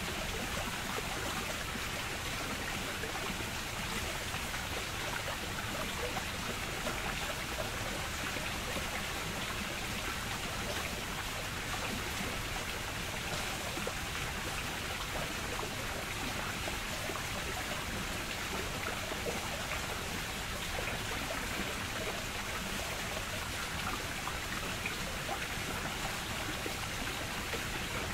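Steady rush and trickle of running water, even throughout with no separate splashes standing out.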